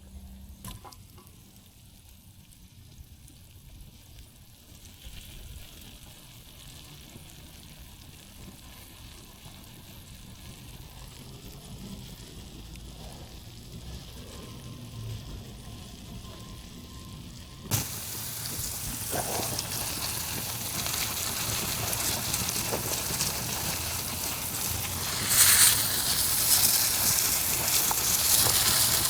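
Shrimp frying in oil and lemon juice in a pan over a wood fire, sizzling. The sizzle is faint at first and slowly builds, then becomes suddenly much louder about two-thirds of the way through, with a brief louder surge near the end.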